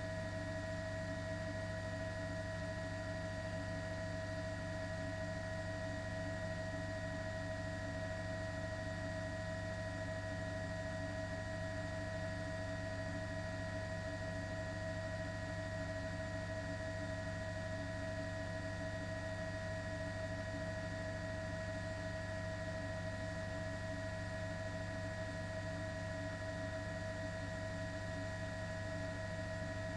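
A steady, unchanging hum made of several fixed tones, some low and some high, over a faint hiss.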